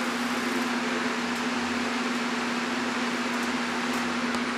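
Electric fan running steadily: an even whooshing hiss with a constant motor hum underneath.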